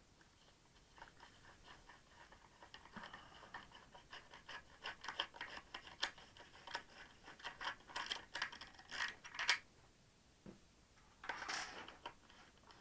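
Faint, irregular small clicks and scratches of a screwdriver turning screws out of a battery pack's case, stopping about nine and a half seconds in, followed by a short scraping rustle near the end.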